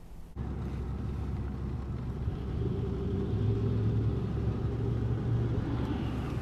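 Steady low vehicle rumble that starts abruptly a moment in and swells a little in the middle.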